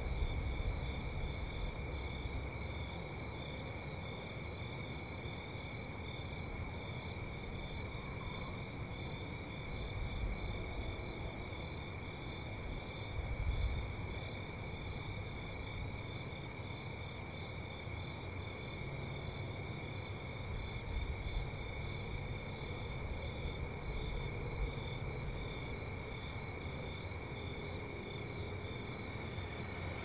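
Crickets chirping steadily in two high, pulsing bands over a low rumble of traffic that swells and fades as vehicles pass, loudest about a third of the way in.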